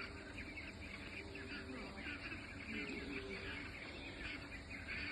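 Goslings peeping, many short high cheeps overlapping continuously.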